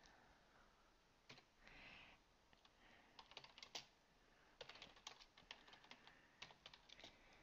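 Faint typing on a computer keyboard: runs of quick keystroke clicks with short pauses between them.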